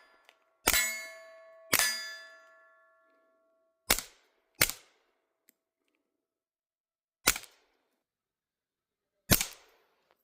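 Six shots from a suppressed .22 Smith & Wesson M&P, each a short sharp crack, spaced about one to three seconds apart. After each of the first two shots there is a metallic ring that dies away over a second or so.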